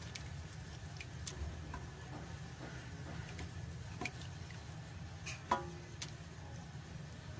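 Wooden spatula stirring thick white sauce of milk and a flour-and-butter roux in a nonstick pan, working out the lumps, with scattered light taps and scrapes against the pan. A louder knock with a brief ring about five and a half seconds in. A steady low hum runs underneath.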